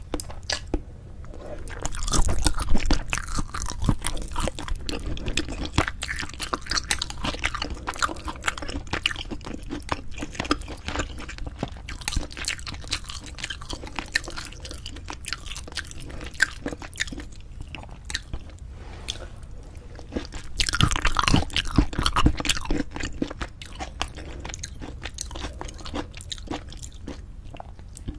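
Close-miked chewing of braised spicy chicken with cheese: wet, sticky mouth sounds with crunchy bites, louder around two seconds in and again around twenty-one seconds in.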